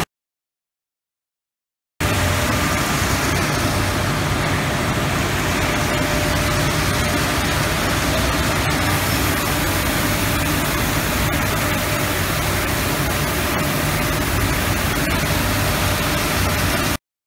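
Greefa GeoSort apple grading line running: a steady din of machinery and water flowing through the flumes, with a faint steady hum. It is silent for the first two seconds, then starts abruptly and cuts off just before the end.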